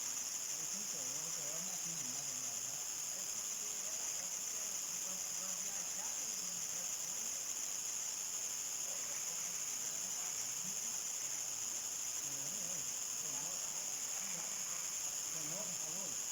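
Crickets chirring in a steady, unbroken chorus that sits high in pitch. Faint, wavering low sounds run underneath.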